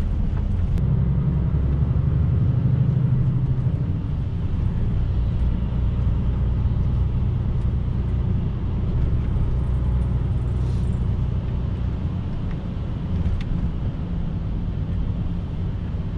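Truck engine and road noise heard inside the cab while driving: a steady low rumble, a little louder in the first few seconds.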